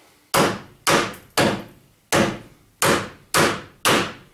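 Hand hammer striking a wedged bolt in a truck camper's metal roof-lift bracket: seven hard blows about half a second apart, each ringing briefly. The bolt is jammed because the frame around it is deformed.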